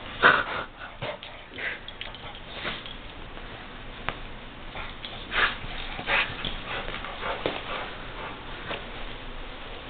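A pit bull sniffing and huffing with its nose pushed into a plush toy as it chews and worries it, in short irregular breaths, a few of them louder.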